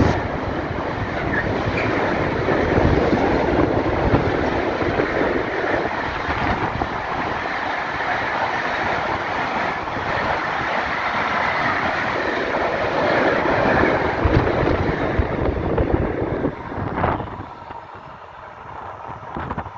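Freight train carrying lorry semi-trailers running through the station close by without stopping: a steady, loud noise of wheels and wagons on the rails. The noise falls away sharply near the end as the last wagons pass.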